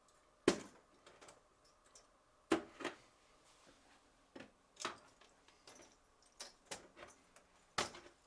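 Scattered short clicks and light knocks of needle-nose pliers and plastic electrical connectors being worked off a refrigerator's defrost heater, about nine in all, the sharpest about half a second in and just before the end.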